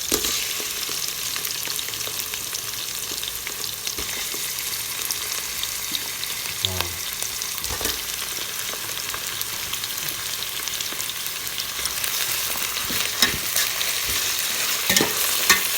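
Chicken wings frying in a pan with sautéed onion, garlic and ginger: a steady sizzle, slightly louder in the second half, with a few sharp knocks near the end.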